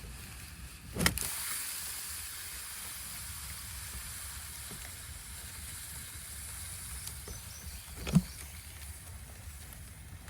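Outdoor microphone noise: a steady low rumble of wind on the microphone under a faint high hiss, broken by two sharp knocks, one about a second in and a louder one near the end.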